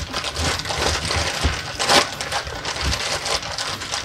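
Thin clear plastic bag crinkling and rustling as it is worked open and pulled off a figure, with a sharper crackle about two seconds in.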